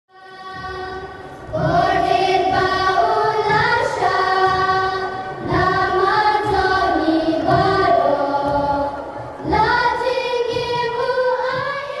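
A choir of children singing a slow song in unison, with long held notes in three phrases separated by short breaths.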